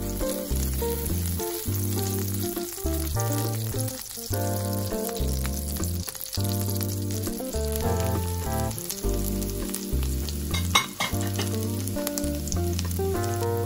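Butter sizzling and foaming as it melts in a hot nonstick frying pan, stirred with a wooden spatula. About eleven seconds in there is a sudden louder crackle as chopped spring onions go into the hot butter. Background music with a bass line plays underneath.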